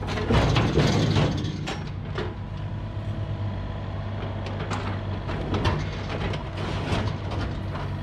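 Mini excavator's diesel engine running steadily under hydraulic load, with a loud clatter in the first second as a bucket load of dirt and debris drops into the dump truck bed, then a few single knocks as the bucket works.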